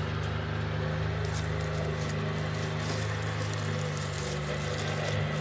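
A steady low motor hum made of several fixed tones, running unchanged throughout.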